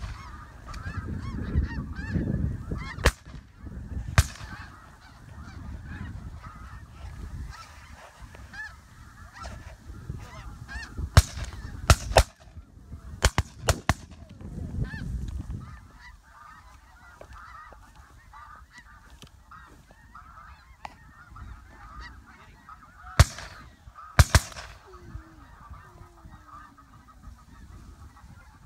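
A large flock of snow geese calling continuously, many overlapping honks and yelps. About a dozen sharp bangs cut through, several in quick bunches, and they are the loudest sounds.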